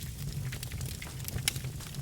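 Birch logs burning in a fireplace, crackling with irregular sharp pops over a steady low rumble; the sharpest pop comes about one and a half seconds in.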